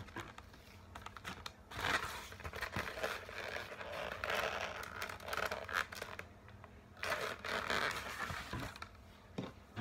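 Latex modelling balloons squeaking and rubbing as they are twisted and handled, in two long spells with a short pause between them.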